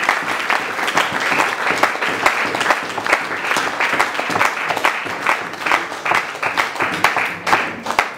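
Audience applauding in a hall, a dense patter of many hands clapping that thins out near the end.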